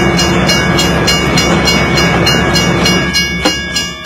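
A train running along the track: a steady rumble with a rhythmic wheel clatter about three times a second. About three and a half seconds in, the rumble drops away and the clatter carries on with a few ringing tones over it.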